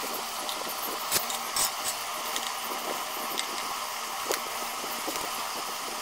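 Screwdriver and metal fan parts giving a few sharp clicks and clinks as the screws holding a blade to a gun-metal ceiling fan's motor housing are undone and the blade is lifted off, over a steady hiss.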